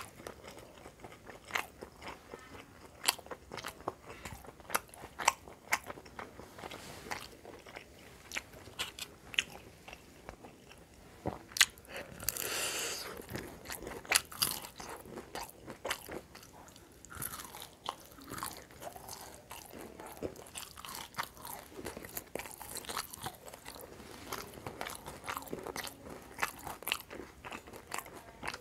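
A person eating by hand, chewing and biting crunchy food, with many sharp, irregular crunches and a longer crunching stretch about twelve seconds in.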